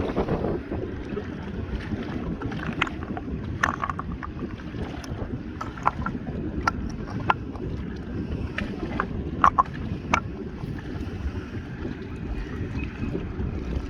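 Wind buffeting the microphone as a steady low rumble, with scattered light clicks and taps throughout.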